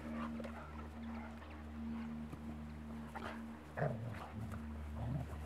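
Bernese mountain dog puppies play-fighting, giving a string of short, irregular vocal noises, with the loudest a little under four seconds in.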